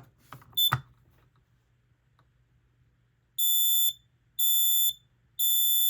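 Kidde KN-COSM-IB combination smoke/CO alarm's piezo horn being tested. A brief click and chirp about half a second in, then three loud, high beeps about a second apart: the temporal-three fire alarm pattern.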